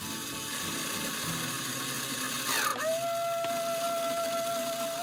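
Claw machine's motor whirring as the claw gantry moves. A little past halfway a falling tone sweeps down, then a steady electronic tone holds to the end.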